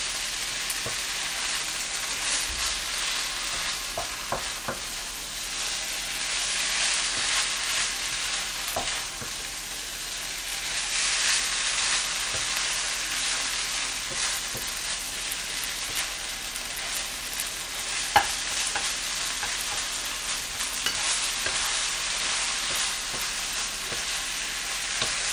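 Egg fried rice sizzling in a frying pan while a wooden spatula stirs and scrapes it, with scattered light knocks of the spatula on the pan and one sharper knock a little over two-thirds of the way through.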